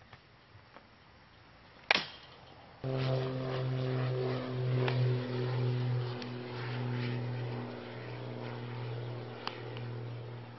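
A sharp crack about two seconds in, a bat hitting a baseball. About a second later a vehicle engine's steady idling hum starts abruptly and keeps on, with faint ticks over it.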